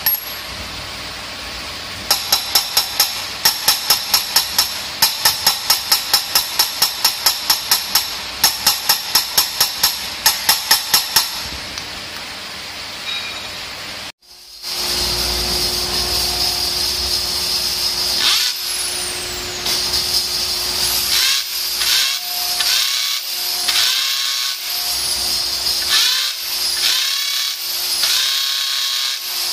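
Runs of sharp, quick taps, about three a second, over a steady hiss. After a sudden break near the middle, a corded electric drill spins a valve against its seat to lap it in, whining up and down in pitch as the trigger is pressed and eased, over and over.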